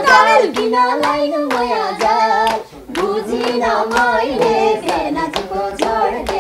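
Voices singing a Nepali dohori song live, with steady hand clapping on the beat and a short break in the singing a little before halfway.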